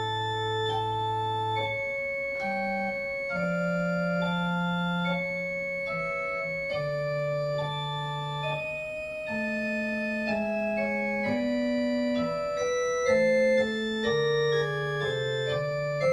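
Organ being played: sustained chords over a moving bass line, the held notes changing every second or so.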